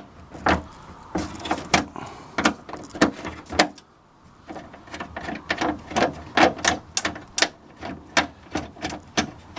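A 10mm spanner working a nut off inside a car door: a run of sharp metallic clicks and knocks, irregular at first, then a few a second after a short pause near the middle.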